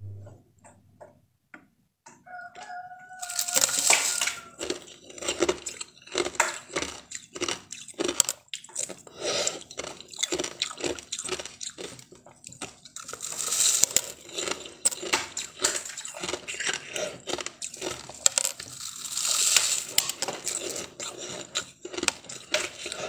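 Packed shaved ice crunching and crackling as it is squeezed in the hand and bitten, with many short sharp crunches and a few louder bursts.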